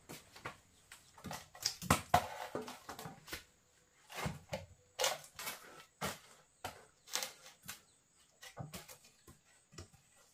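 Footsteps in rubber sandals, then irregular wooden knocks and scrapes as firewood logs and sticks are shifted together in an ash-covered floor hearth, the loudest knock about two seconds in.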